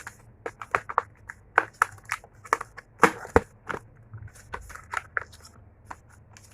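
Food takeaway packaging being handled and opened, crinkling and crackling in quick irregular bursts.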